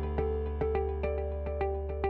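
Background music: a steady run of short repeated notes, about two or three a second, over a held low bass note.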